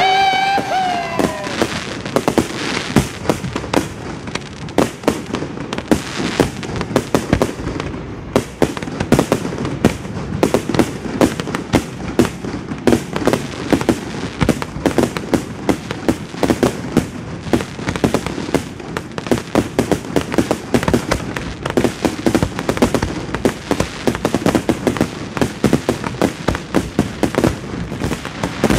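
Fireworks display: a dense, continuous run of bangs and crackles, many per second.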